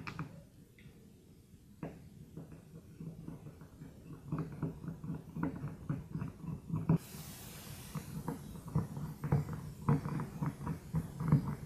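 Phillips screwdriver backing out the screws that hold the sanding pad of a Porter Cable random orbital sander: a run of small irregular clicks and creaks as the screws turn in their threads and the tool shifts in the hands, with a short hiss about seven seconds in.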